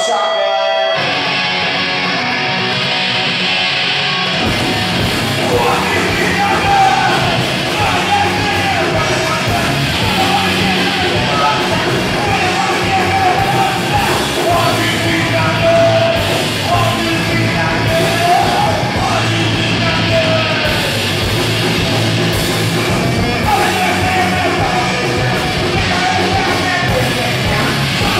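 A punk rock band playing live, with a yelled lead vocal. The full band comes in about four seconds in, after a thinner opening.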